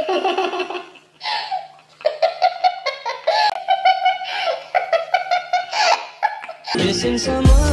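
Young women laughing hard in high-pitched, stop-start fits of giggling. Music comes in near the end.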